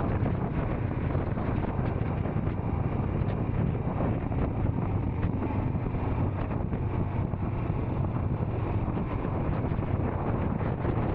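Royal Enfield Scram 440's single-cylinder engine running at a steady speed under way, with wind rushing over the microphone.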